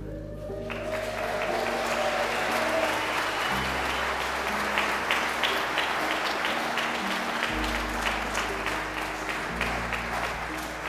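Congregation applauding, the clapping starting about a second in and running on steadily, with soft instrumental background music underneath.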